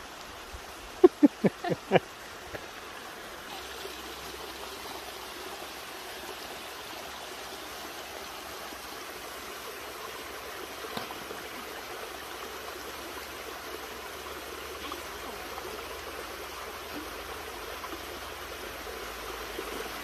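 Small forest waterfall spilling into a pool, a steady rush of running water. About a second in, five short sharp sounds in quick succession are the loudest thing heard.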